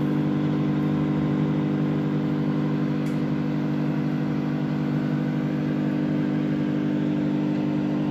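A motor running at an even, unchanging pitch, a steady drone that stops suddenly at the end.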